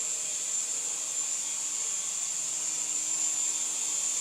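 Syma S107G mini RC helicopter in flight: its small electric motors and coaxial rotors give a steady, high-pitched whine over a faint lower hum, really quiet.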